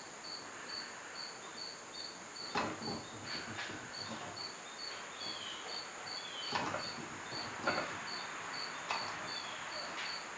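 A cricket chirping steadily: an even train of short, high chirps, about three or four a second, with a few faint clicks.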